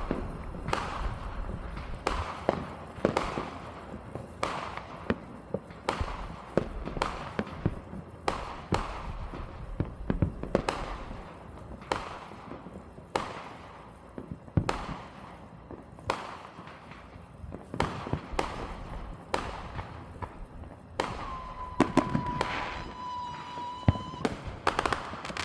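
Fireworks going off in an irregular string of sharp bangs, often more than one a second. Near the end a steady whistling tone holds for about three seconds.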